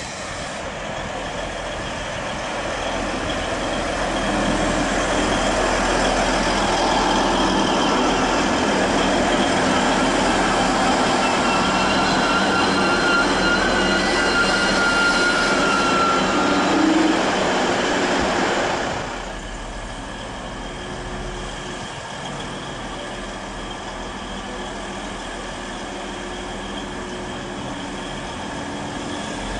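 A train running through the station, building over the first few seconds into a loud rumble, with a high squeal from wheels or brakes past the middle. About two-thirds of the way through the sound drops suddenly to a quieter, steady rumble.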